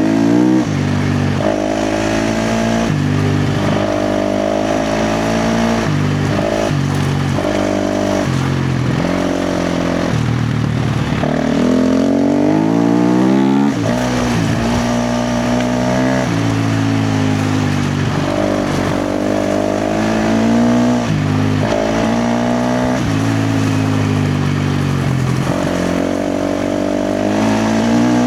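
KTM 350 XC-F dirt bike's single-cylinder four-stroke engine under hard throttle, revving up and backing off again and again, its pitch climbing and then dropping sharply many times.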